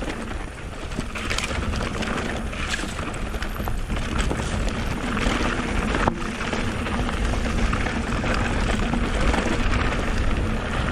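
Mountain bike rolling down a rough, loose track: continuous tyre and trail noise with rattles from the bike and a low rumble, and a sharp knock about six seconds in.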